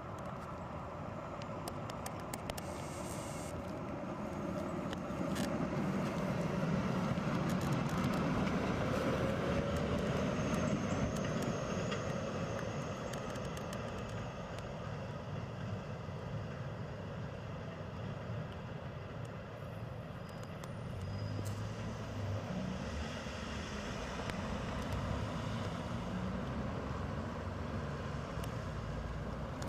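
Tram running along its rails, growing louder and then fading, with a faint rising whine partway through. Later a car drives past on a wet road, its tyres hissing.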